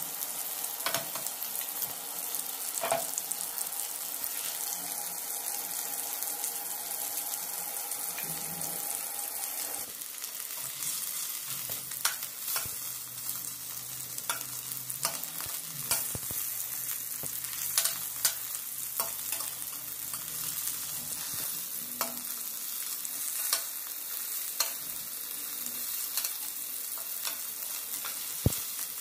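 Stuffed bitter gourds sizzling steadily in hot oil in a steel kadhai, with a perforated steel spatula clicking and scraping against the pan now and then as they are turned.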